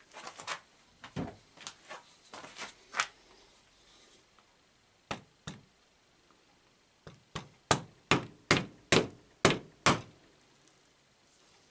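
Wood chisel knocking into a wooden block clamped in a bench vise, breaking the wood apart to free glued coins. A scatter of knocks comes first, two more follow, then a quick run of about eight louder knocks, roughly three a second.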